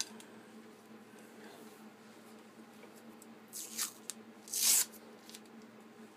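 Two short rasping tears, about three and a half and four and a half seconds in, the second louder: masking tape being pulled off a knife blade. A faint steady hum underneath.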